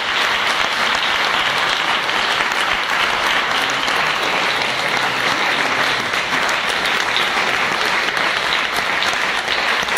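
Audience applauding, a steady, dense clapping at even strength.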